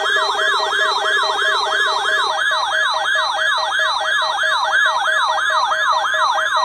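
Weather radio receiver's alert siren: a tone sweeping upward again and again, about three or four times a second. It is set off by the National Weather Service warning alarm tone of a NOAA Weather Radio required weekly test. A low buzz underneath stops about two seconds in.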